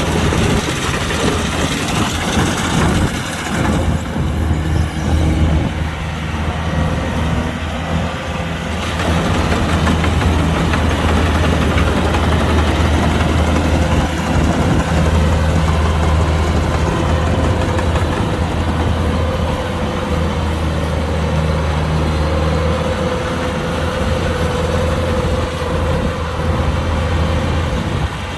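Kubota combine harvester's diesel engine running steadily, with a strong low hum under a wash of machinery noise; a steady higher whine joins in from about halfway through.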